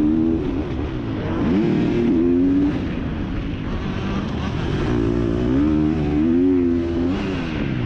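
Motocross bike engine revving up and down as the throttle is worked. Its pitch climbs and holds, drops a little under three seconds in, climbs again about five seconds in, and falls back shortly before the end.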